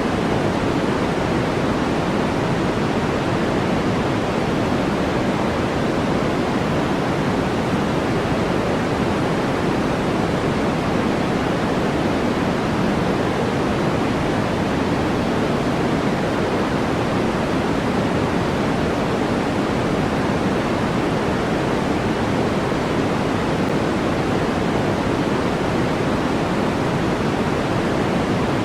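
Steady, unchanging synthetic white-noise track for sleep, a constant rushing hiss. It is fuller in the lower middle than at the top, so it is closer to pink noise than to flat white noise.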